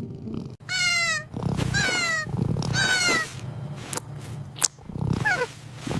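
Kitten meowing: three drawn-out meows that fall in pitch, about a second apart, then a shorter, weaker meow near the end.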